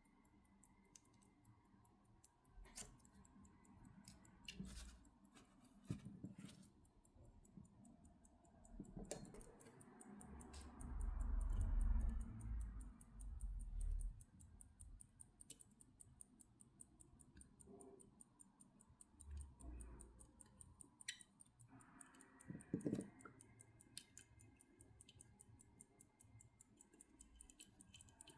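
Faint, rapid, steady ticking of a running Waltham Vanguard 18-size pocket-watch movement, with scattered small clicks and a few low knocks from a watchmaker's screwdriver and tweezers handling the case while a lug screw is fitted.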